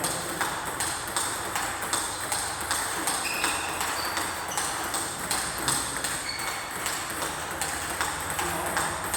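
Rapid, irregular sharp clicks of a ball-and-racket game, about two or three hits a second, with a few short shoe squeaks on the court floor a few seconds in.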